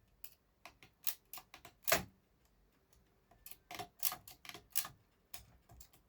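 Irregular sharp mechanical clicks from the carriage controls of a 1961 Erika 10 manual typewriter as its levers and selector are worked, a few scattered clicks at first and a denser run of them in the second half.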